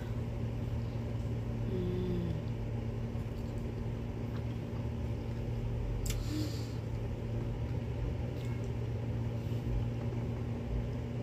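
A woman chewing a mouthful of tortilla wrap, with a short hummed 'mm' about two seconds in and a single click about six seconds in, over a steady low hum.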